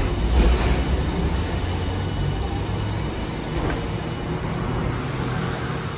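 Hiroshima Electric Railway Green Mover LEX low-floor tram rolling in along the platform, with a steady low rumble of wheels on the rails.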